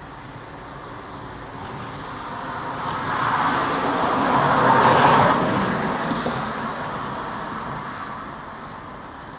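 A car passing by: its road noise swells to a peak about five seconds in, then fades away.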